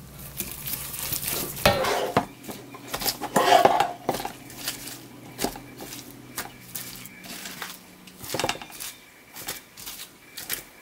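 Hands lifting seasoned napa cabbage from a stainless steel bowl and packing it into a plastic kimchi container: a run of light knocks, clinks and wet rustles, busiest in the first four seconds.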